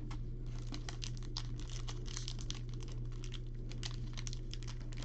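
Trading-card pack wrappers crinkling and tearing as packs are opened by hand, a run of irregular quick crackles over a steady low hum.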